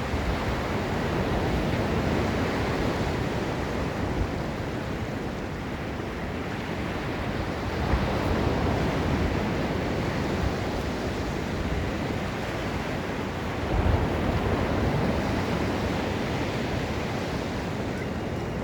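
Ocean surf breaking and washing up on a sandy beach: a continuous rushing that swells and eases, with louder surges about 8 and 14 seconds in.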